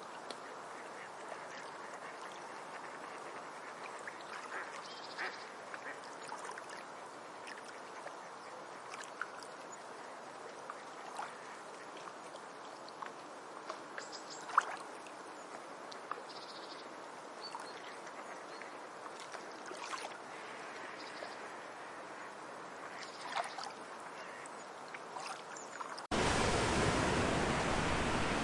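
Tropical forest ambience: a steady background hiss with many short, scattered animal calls. About 26 seconds in it cuts abruptly to a much louder, steady rushing noise.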